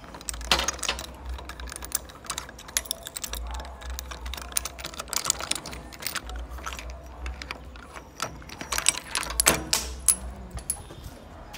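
A/C hose crimping tool being worked as its dies press a crimp fitting onto a refrigerant hose: a run of irregular clicks and small metallic knocks, with a low hum that comes and goes.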